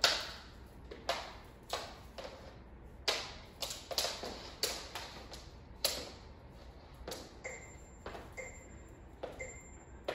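Irregular sharp taps and knocks on a hard floor, about one or two a second, as a jump rope is handled. Near the end, three short high beeps come about a second apart.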